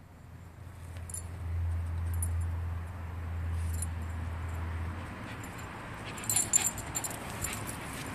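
Metal pet ID tags on a dog's and a cat's collars jingling and clinking as the animals move, loudest about six and a half seconds in. Under the first five seconds runs a low steady rumble that then stops.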